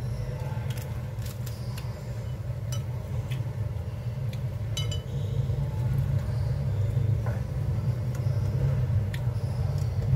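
Light clinks of chopsticks and utensils on ceramic plates and bowls, a handful spread out, one ringing briefly about five seconds in, over a steady low hum.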